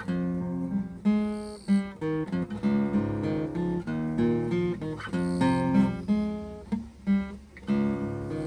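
Acoustic guitar playing chords, with plucked and strummed notes changing every half second or so, and no singing.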